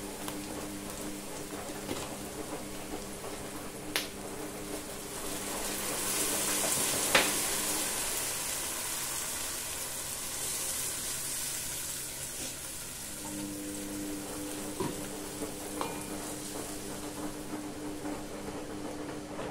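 Chopped red onions sizzling in hot olive oil in a pot, stirred with a wooden spoon, with a few sharp knocks. Partway through, a wet blended pepper soup base is poured in and the sizzle swells into a louder hiss, then eases.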